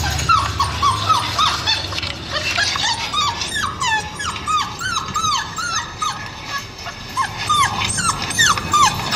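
Recorded puppies crying, played back through an iPhone's speaker: many short, high whimpering cries, each rising then falling in pitch, one after another and overlapping.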